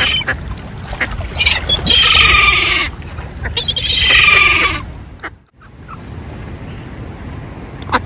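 Water birds honking and calling loudly: two long, strongly pitched calls of about a second each in the first half, over a steady low rumble of wind and water. The sound drops out briefly just past the middle.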